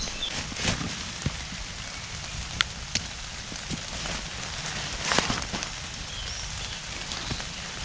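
Rain falling in woodland, a steady hiss with scattered sharper ticks of drops landing, and a louder patch about five seconds in.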